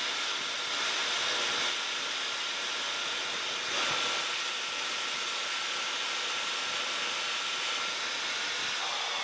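Metal lathe running under a heavy cut: a carbide insert in a 16 mm BXA tool holder turning a bar at a quarter-inch (6.35 mm) depth of cut. A steady machining noise with a faint high whine, briefly louder about four seconds in.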